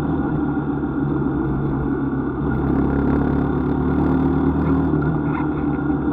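Engine of the recording vehicle running at a steady cruising speed, an even hum with road noise.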